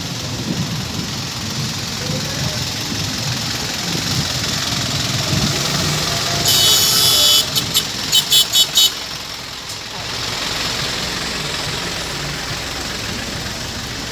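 Street traffic noise with engines running and some background voices. About halfway through, a loud high hiss lasts under a second, followed by five short hissing bursts in quick succession.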